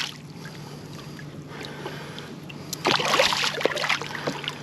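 Water splashing and knocking around a kayak for about a second and a half, starting some three seconds in, over a faint steady hum.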